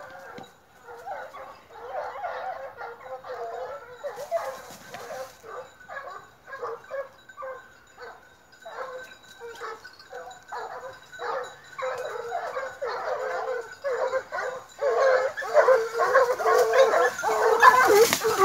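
Young Gascon hounds baying in quick, overlapping calls, the chorus growing louder over the last few seconds.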